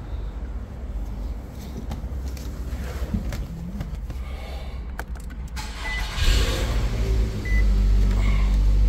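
A car's engine starting about six seconds in and then running steadily, heard from inside the car, with a few short high electronic beeps; before it, a low rumble with small clicks and knocks.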